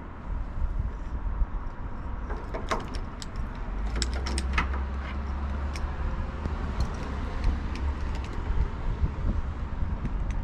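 Wind buffeting the microphone in a steady low rumble, with a run of light metallic clinks and jingling, thickest from about two and a half to five seconds in, as hardware on the windmill sail is handled.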